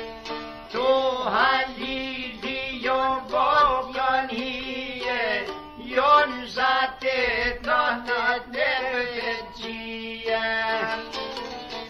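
Background music: an Albanian folk song, a male voice singing over plucked string accompaniment, with the voice coming in about a second in.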